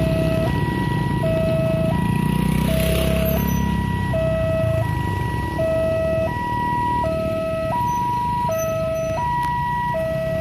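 Railway level-crossing warning alarm sounding a two-tone hi-lo signal, a lower and a higher tone alternating about every three-quarters of a second, over the low running of motorcycle and car engines crossing the tracks. The alarm keeps sounding although the train has already passed.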